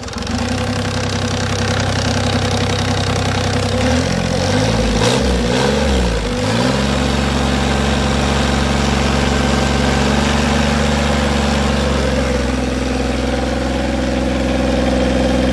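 Daihatsu CLMD 30 marine diesel engine running, its speed rising and falling a few times about four to seven seconds in, then settling into a steady run.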